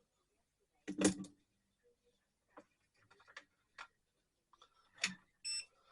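Small clicks and knocks of tools and parts being handled on a workbench: a clatter about a second in, lighter ticks after it, and a sharper knock about five seconds in, then a short high-pitched beep.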